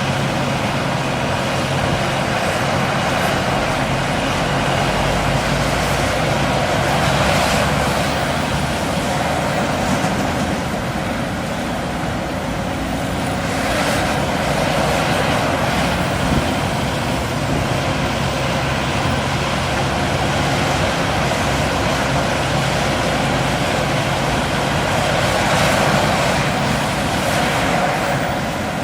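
Heavy diesel machinery working: a steady low engine drone from large excavators and dump trucks under a broad rushing noise, which swells and eases a little now and then.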